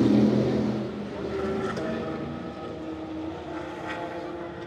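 A vehicle engine running in the background, a droning note that is loudest in the first second and then eases to a steady hum.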